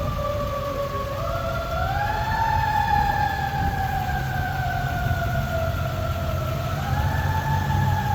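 Emergency vehicle siren on a slow wail: the pitch climbs about a second in, sinks gradually for several seconds, then climbs again near the end, over a low rumble of traffic.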